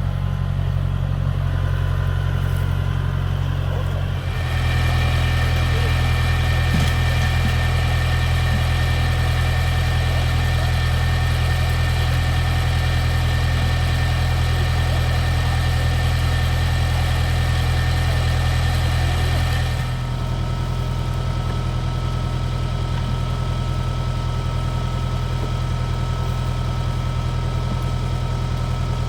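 Vehicle engine running steadily. About four seconds in it grows louder and its note rises, and it settles back to a lower note about twenty seconds in.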